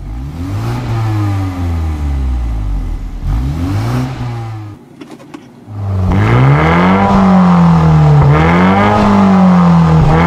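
BMW G22 430i's turbocharged four-cylinder revved through a Fi valvetronic cat-back exhaust: two quieter rev blips with the exhaust valves closed in Comfort mode, then, about six seconds in, louder repeated revs with the valves open in Sport mode.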